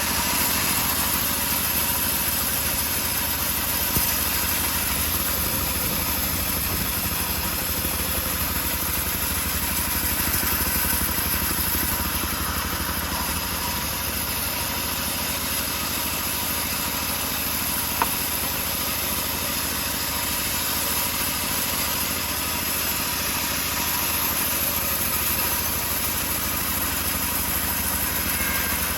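Engine-powered homemade bandsaw sawmill running steadily, with two single sharp clicks, one a few seconds in and one just past the middle.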